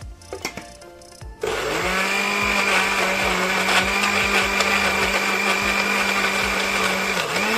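Electric countertop blender switched on about a second and a half in, its motor spinning up to a steady whine as it blends avocado pieces with milk; near the end the pitch dips briefly and comes back up. A couple of knocks come just before it starts.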